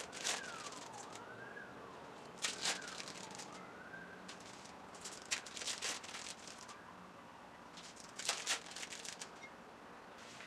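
Thin plastic wrappers of individually wrapped American cheese slices crinkling as they are peeled off, in about four short bursts a few seconds apart.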